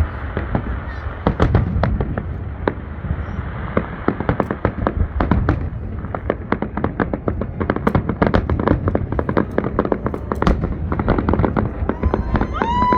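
Fireworks display going off in rapid succession, a dense stream of sharp bangs and crackles that grows thicker over the second half. A steady horn-like tone sounds near the end.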